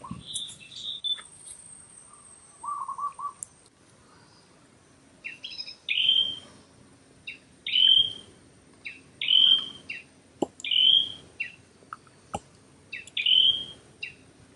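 A bird calling over and over, each call a quick short note followed by a louder, slightly falling whistle, about every one and a half seconds from a few seconds in; softer trilled notes come earlier, and there are two sharp clicks near the end.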